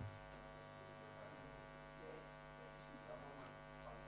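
Near silence with a steady electrical mains hum, a stack of even steady tones running underneath.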